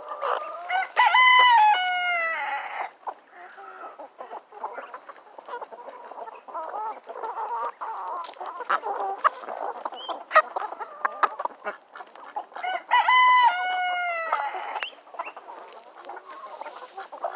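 A rooster crows twice, each crow about two seconds long, falling in pitch at the end. Between the crows, the flock clucks steadily, with scattered short clicks.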